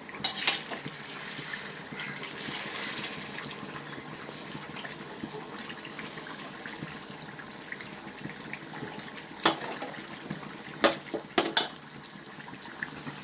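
Chicken pieces frying in coconut oil with a steady sizzle, and a few sharp clinks of the stirring ladle against the pan.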